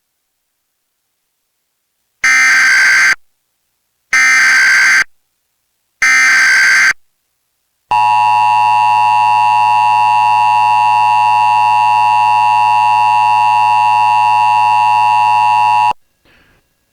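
Emergency Alert System header: three one-second bursts of SAME digital data screech about two seconds apart, then the steady two-tone EAS attention signal for about eight seconds, cutting off suddenly. It announces an Amber Alert, with the standard attention tone in place of the Texas Amber Alert siren.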